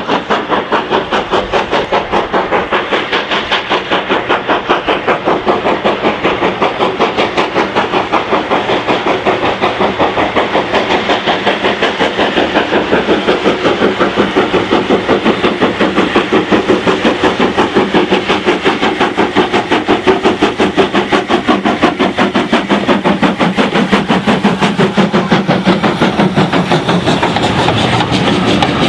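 LNER Q6 0-8-0 steam locomotive No. 63395 working hard past at speed, its two-cylinder exhaust beating rapidly and evenly. Near the end the beats blur into the rumble and clickety-clack of the passing teak coaches.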